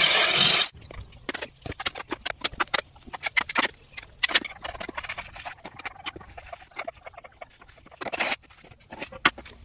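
An angle grinder cutting into a cement-rendered wall stops under a second in. Then a trowel scrapes and knocks mortar against the wall in quick, irregular strokes, with one brief louder scrape near the end.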